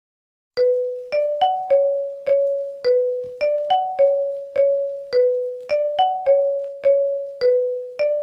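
Phone ringtone: a short melody of struck, chiming notes that each fade quickly. A five-note phrase loops about every two and a quarter seconds, starting about half a second in.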